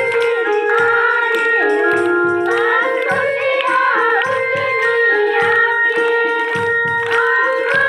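A group of schoolgirls singing a song together, accompanied by held electronic keyboard chords and a steady drum beat.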